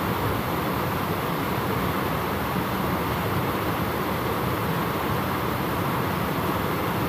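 Steady rushing of water spilling over a small stone weir into a stream, an even unbroken noise with no separate events.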